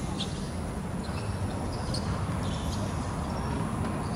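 Steady low outdoor background rumble, with a few faint, short high chirps scattered through it.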